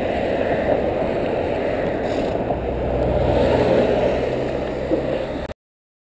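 Wind and road noise on a bicycle-mounted camera's microphone while riding in traffic, with a car's engine running close alongside from about two seconds in. The sound cuts off suddenly near the end.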